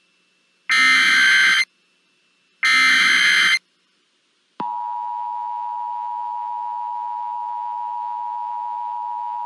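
Emergency Alert System tones: the last two of three one-second SAME header data bursts, a second apart, then the steady attention signal tone starting abruptly about four and a half seconds in and holding.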